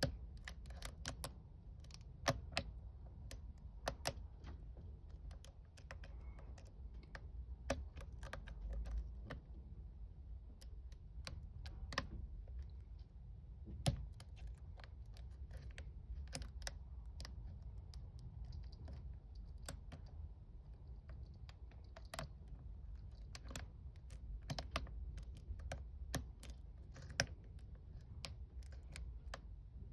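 Lock pick and tension wrench working the standard pin tumblers of a five-pin Smith & Locke padlock: small irregular metallic clicks and ticks, several a second, over a steady low hum.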